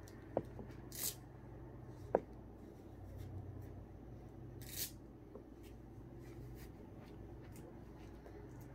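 Quiet room tone with a low steady hum, broken by two brief soft rustles and a couple of faint clicks.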